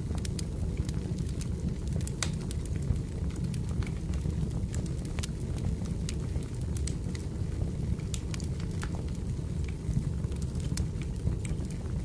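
Crackling wood fire: a steady low rumble of burning logs with irregular sharp pops and crackles.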